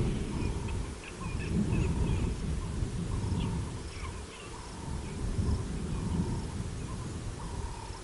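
Outdoor ambience: a low, uneven rumble that swells and fades, with faint, short chirping calls repeating over it.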